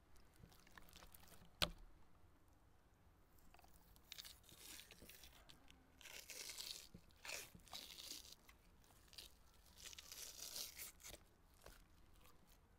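Raw beef liver's thin membrane being pulled and peeled away by hand: several short, soft tearing rustles, with a single sharp click about a second and a half in.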